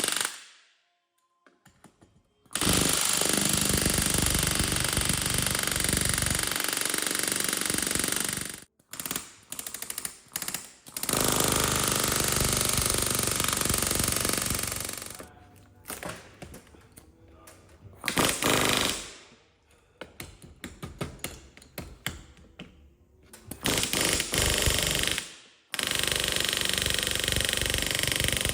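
Handheld pneumatic air tool running in repeated bursts of a few seconds each, stopping and starting several times.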